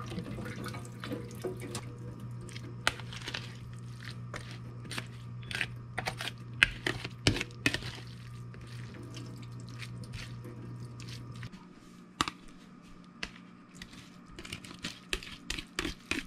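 A metal spoon pressing and scraping wet chopped cucumber relish against a plastic colander over a steel sink, with liquid dripping and many small clicks and knocks. A low steady hum underneath stops about two-thirds of the way through.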